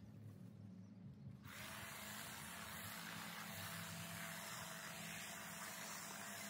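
Corded electric hedge trimmer running faintly with a steady motor buzz as it cuts weeds; a steady hiss comes in about a second and a half in.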